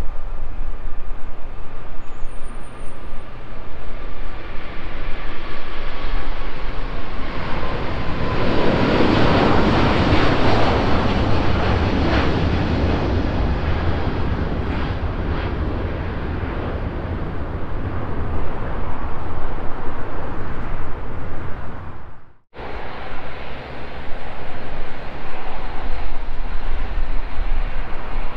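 Airbus A380-841 taking off, its four Engine Alliance GP7270 turbofans at takeoff thrust. The loud jet noise has a whine that falls in pitch, swells to a peak about a third of the way in, then eases off as the jet climbs away. The sound cuts out for a moment about three-quarters of the way through.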